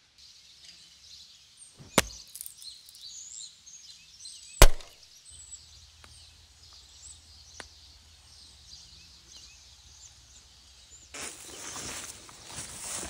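Two sharp knocks of something striking wood, about two and a half seconds apart, the second louder, with faint birds chirping behind. Near the end steady rustling and footsteps on the forest floor start up.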